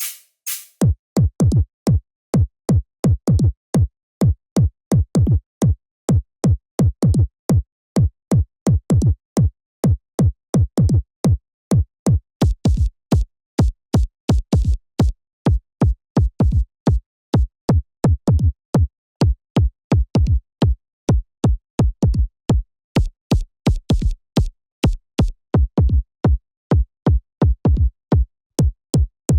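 Synthesized kick drum played by an Ableton drum rack, repeating a few times a second in a steady pattern. Each hit is a deep thud that drops quickly in pitch, with a sharp click on top.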